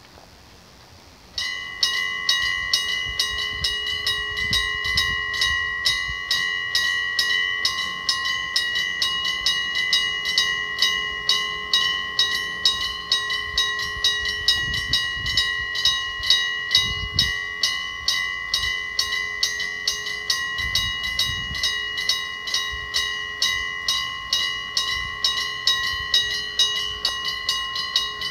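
Electric bell of a railway level crossing starting to ring about a second and a half in, then ringing on and on with fast, even strokes: the warning that a train is approaching.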